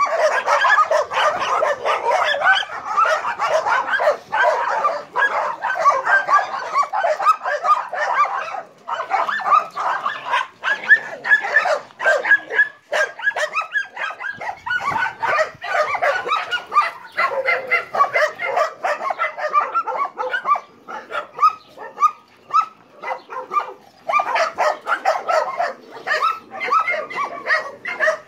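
A chorus of many dogs barking at once, overlapping barks with hardly a break, easing off a little around the middle and picking up again near the end.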